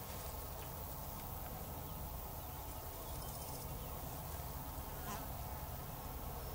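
Steady low buzzing of flying insects, with a faint click about five seconds in.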